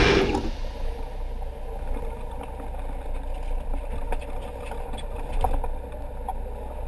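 Steady low hum of a sportfishing boat's engine, with a few short knocks about four and five and a half seconds in as a tuna is hauled over the gunwale onto the deck.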